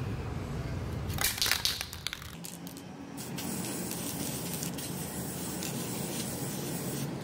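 Aerosol can of chrome spray paint hissing in one short burst about a second in, followed by a few light clicks, over a steady low rumble.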